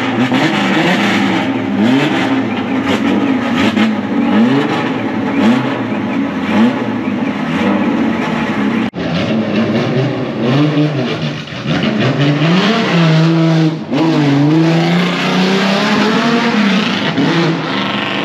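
Ford Capri race car's engine being revved hard in repeated throttle blips, its pitch climbing and falling again and again; after a break about nine seconds in, the revs rise and fall more slowly.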